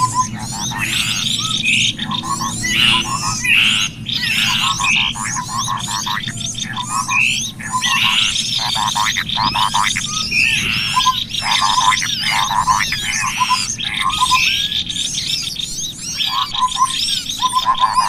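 Bird-lure (pikat) call track: a dense chorus of small songbirds chirping and twittering over one another without a break. A short, quick series of rapid low notes keeps recurring through it.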